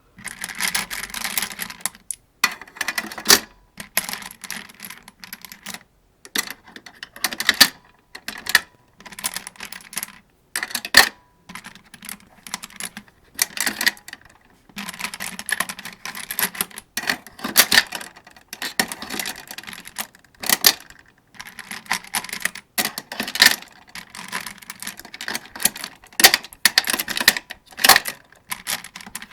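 Rounds being loaded into a 75-round AK-47 drum magazine: runs of sharp metallic clicking and rattling, broken by short pauses.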